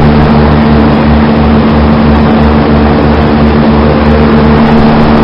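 Trane Odyssey 20-ton straight-cool condensing unit just after start-up, its compressor and fans running with a loud, steady hum.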